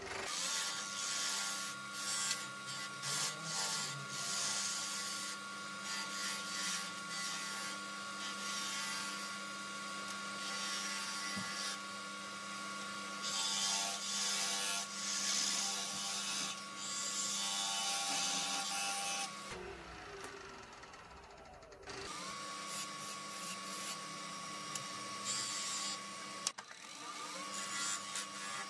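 Wood lathe running with a steady motor whine, a tool cutting into the spinning wooden handle blank with a changing hiss. About 20 s in the lathe is switched off and spins down; it starts again about 2 s later, its whine rising as it comes up to speed, and dips and rises once more near the end.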